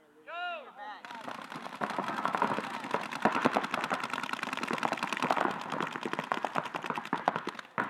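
Paintball markers firing fast strings of shots, a dense rattle that starts about a second in and stops just before the end, after a short shouted call.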